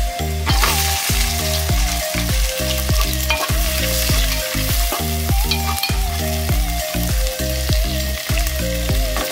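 Sliced onions with chopped ginger and garlic sizzling in hot oil in an aluminium pot, the sizzle swelling about half a second in as the onions go in, with a slotted spatula scraping and stirring them. Background music with a steady beat and a bass line plays throughout.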